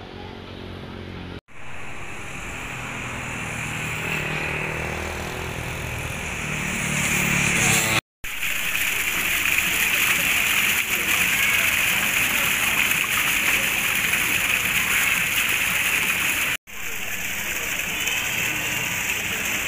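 Water from a fountain spout pouring and splashing into a garden pond, a steady rushing splash. Before it there is a lower rumble that grows louder. The sound breaks off briefly at each cut.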